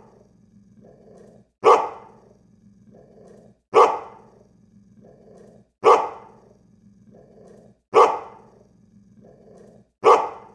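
A dog barking once every two seconds or so, five times, with a softer, lower sound between barks over a faint steady low hum. The spacing is exactly even, so it is a looped sound effect on the outro track.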